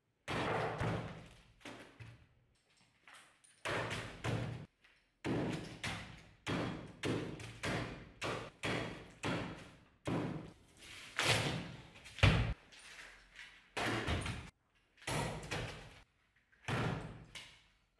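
A sword blade repeatedly chopping into a cabbage on a wooden stump: about two dozen sharp whacks with a dull thud, coming irregularly once or twice a second with a few short pauses.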